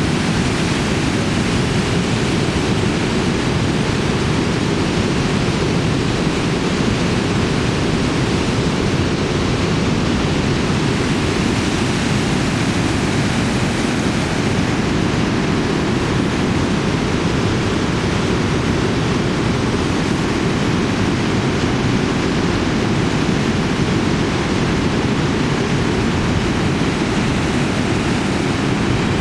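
Waterfall, a loud, steady, deep rush of falling water that does not change.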